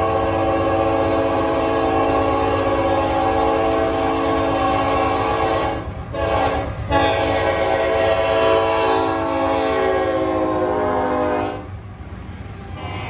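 Diesel locomotive's multi-note air horn blowing for a grade crossing: a long blast, a short one, then another long one that dips slightly in pitch as the locomotive passes and stops a little before the end. After it the rumble of the passing locomotives goes on.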